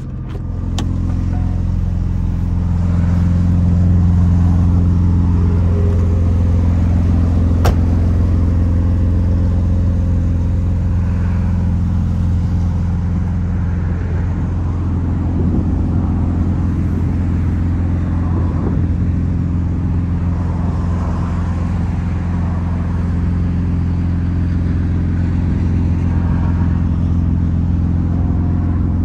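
McLaren Artura's twin-turbo V6 idling steadily, the level rising a little over the first few seconds. A single sharp click sounds about 8 seconds in.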